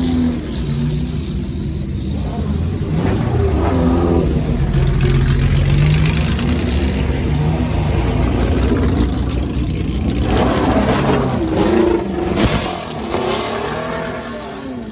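Classic 1960s–70s racing car engines running at low speed as the cars roll past, with throttle blips rising and falling in pitch about two-thirds of the way through.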